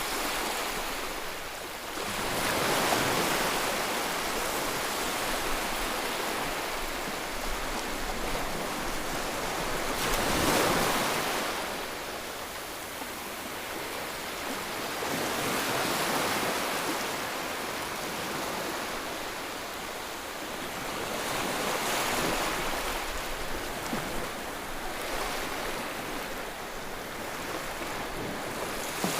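Waves: a continuous rush of surf that swells and ebbs, building to a louder surge every five to six seconds.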